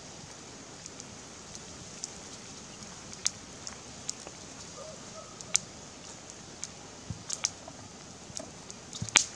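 Small wood fire crackling under a grilling fish, with irregular sharp pops over a steady hiss, the loudest pops near the end.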